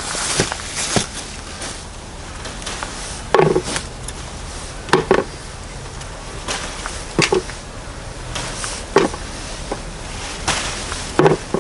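Climbing beans being picked by hand: the leaves rustle at first, then about five short sharp clicks come a second or two apart as pods are pulled from the plant and gathered into a plastic bowl.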